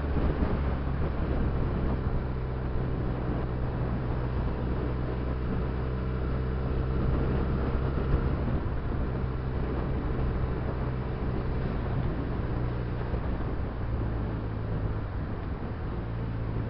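Benelli TNT300's 300 cc parallel-twin engine running at a steady pace under way, with wind and road noise; its pitch shifts slightly about fourteen seconds in.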